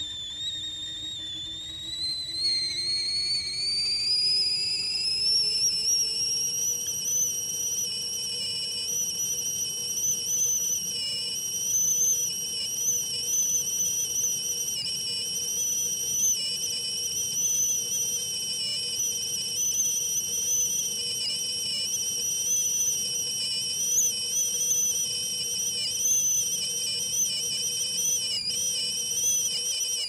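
Tea kettle whistling at the boil: a high whistle that climbs in pitch over the first several seconds, then holds steady with a constant wavering warble.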